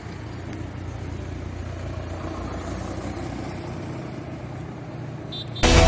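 A vehicle engine running steadily in street noise, a low even hum that grows slightly louder. Loud music starts suddenly near the end.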